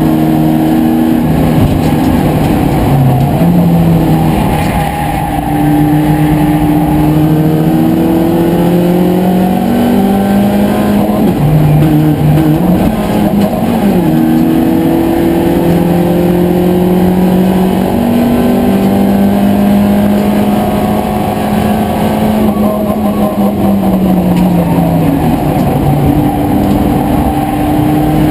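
BMW Compact Cup race car's engine heard from inside the cockpit, driven hard on track. The revs climb and fall repeatedly, with sharp drops in pitch at gear changes about three seconds in and again around thirteen seconds. A long slow climb follows, which falls away about three quarters of the way through.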